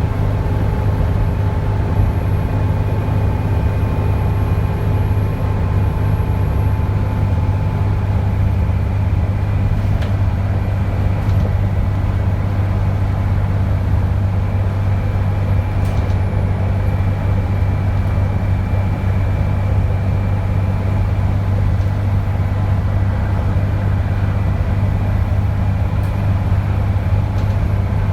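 Dennis Trident 2 double-decker bus's diesel engine running at a steady speed with a low drone, a thin high turbocharger whistle above it, and a few faint clicks.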